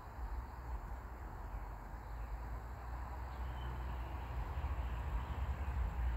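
Outdoor ambience: a steady low rumble with a faint hiss over it, and a faint short chirp about three seconds in.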